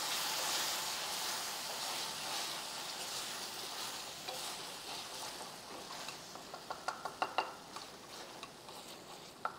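Sauce sizzling in a hot frying pan as a spatula stirs it through. The sizzle slowly dies down, and in the last few seconds the spatula taps and scrapes against the pan.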